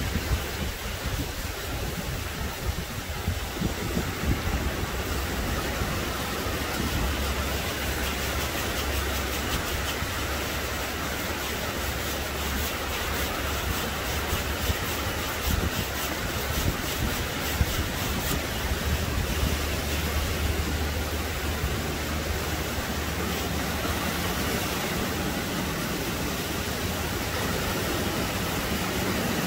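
Small waves breaking and washing up a sandy beach in a steady rush of surf, with wind rumbling on the microphone.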